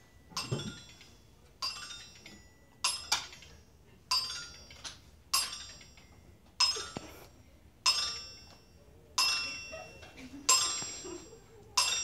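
A bright chime struck over and over at a steady pace, about once every one and a quarter seconds, each strike ringing with several high tones and dying away before the next.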